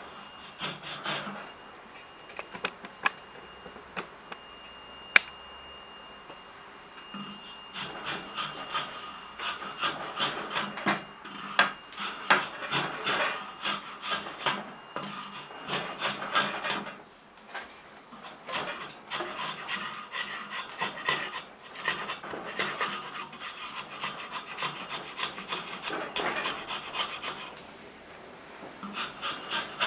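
Wood rasp shaping an ash hammer handle: rasping strokes across the wood, about two a second, with a short break partway through. The first few seconds hold only a few sharp clicks.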